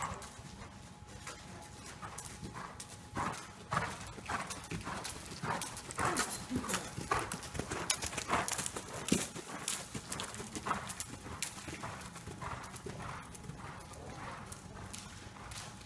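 A ridden horse's hoofbeats on soft dirt and sand arena footing, a steady run of dull thuds. They grow louder around the middle as the horse passes close by, then fade as it moves away.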